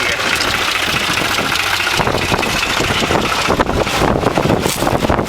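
Tractor engine running steadily, with wind noise on the microphone.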